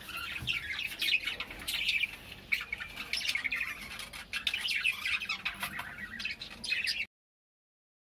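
A flock of small caged parrots, budgerigars and lovebirds, chattering and squawking in many short overlapping chirps. The calls stop abruptly about seven seconds in.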